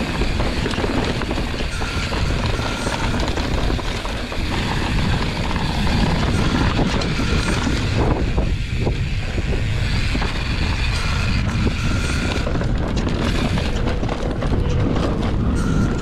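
Mountain bike ridden fast down a dirt trail: wind rushing over the camera microphone, with tyre rumble and a steady rattle of small knocks from the bike.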